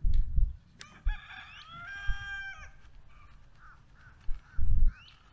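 A rooster crows once, starting about a second in and lasting about a second and a half, fairly faint. Two louder low rumbles on the microphone come at the start and near the end.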